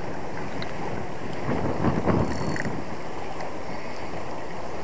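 Strong wind buffeting the microphone, with the mechanical whirr of a 3000-size spinning reel being cranked to retrieve the line.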